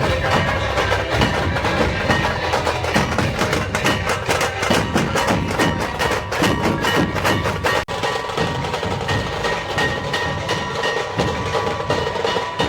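Loud percussion-heavy procession music played over a large DJ sound system: a fast, driving beat with held tones. It cuts out for an instant almost eight seconds in.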